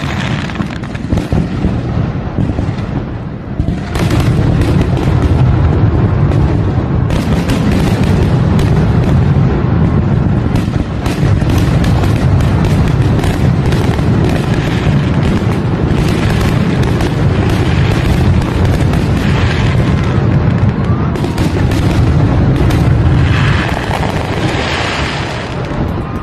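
Fireworks going off in a dense, near-continuous barrage of booms and crackling bursts, growing louder about four seconds in and easing near the end.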